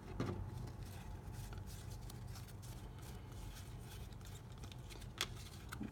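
Baseball trading cards being handled and flipped through in the hands: faint papery slides and light card clicks, with one sharper click about five seconds in, over a low steady hum.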